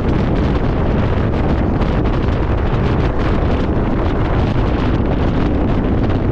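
Wind rushing over the microphone of a camera held out of a moving passenger train's window, with the train's running noise beneath. Loud and steady throughout.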